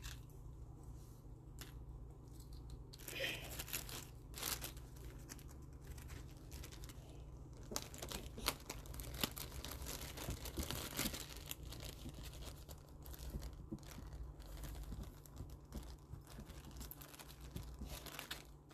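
Clear plastic zip-top bag crinkling and rustling as it is handled, with many small irregular crackles, mostly from about three seconds in.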